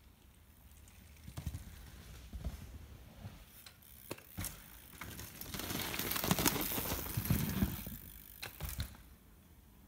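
Mountain bikes riding dirt jumps: tyres rushing over sand and packed dirt with the rear freewheel hub ticking, growing louder for a couple of seconds past the middle as a rider passes close. Several sharp knocks are scattered through it.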